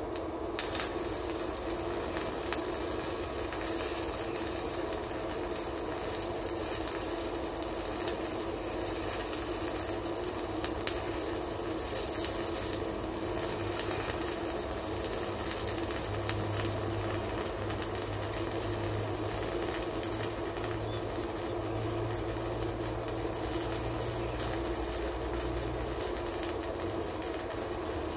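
Shielded metal arc (stick) welding with an E6013 rod on a small inverter welder: a continuous crackle and hiss of the burning arc, with frequent sharp pops.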